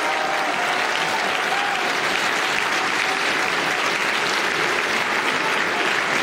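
Audience applauding in a hall, a steady clapping.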